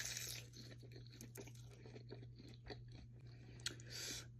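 Close-miked chewing of a bite of raw tuna, cream cheese and seaweed: many small wet clicks and soft crunches, over a steady low electrical hum.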